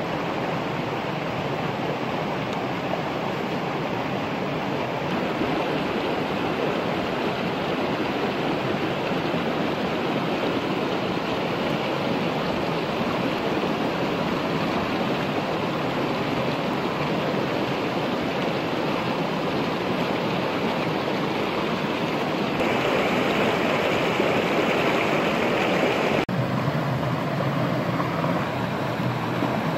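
Steady rush of a stream flowing over rocks, shifting abruptly in tone and loudness twice in the last third.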